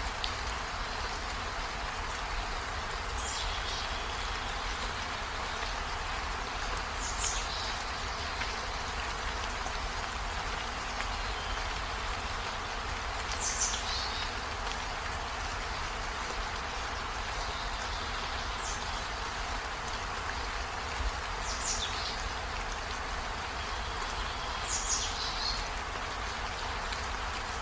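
Steady rain falling, with a short high chirp that sweeps down in pitch about six times, every few seconds.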